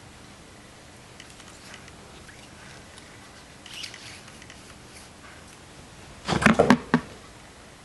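Light scratching and small taps as the pin-tipped ellipse is handled over the paper, then a brief clatter of several sharp knocks about six seconds in, the loudest sound.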